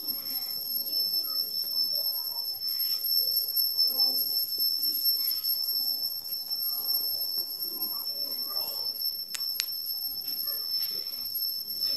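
A steady high-pitched whine with faint, indistinct voices in the background, and two sharp clicks about nine and a half seconds in.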